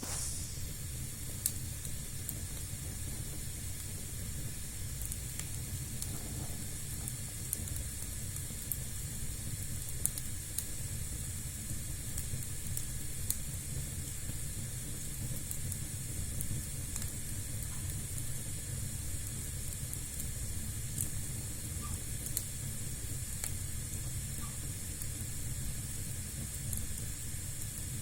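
Fire burning in a fireplace: a steady hiss and low rumble with scattered sharp crackles every second or so.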